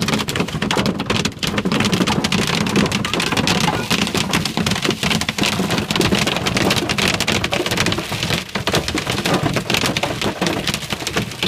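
Heavy rain mixed with hail drumming on the roof and windshield of a car, heard from inside the cabin as a dense, loud, unbroken patter of impacts.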